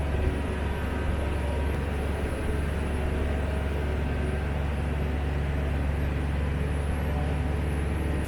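Engine of heavy machinery running steadily with a low, even drone.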